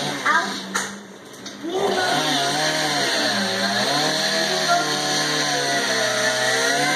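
Chainsaw running and cutting into a hot tub, its engine pitch rising and falling in waves. It eases off briefly about a second in, then picks back up.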